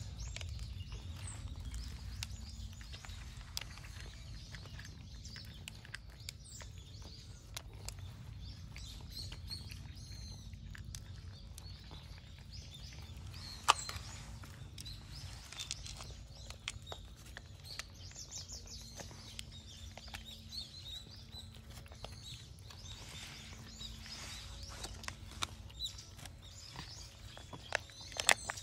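Outdoor ambience: small birds chirping on and off over a steady low rumble, with scattered sharp clicks and one louder click about fourteen seconds in.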